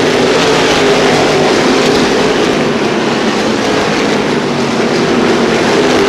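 NASCAR Whelen Modified race cars running at speed around the short track: a loud, steady engine din from several cars, its pitch sagging slowly.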